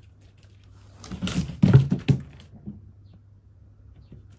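A quick run of loud knocks and thumps lasting about a second and a half, over a faint steady low hum.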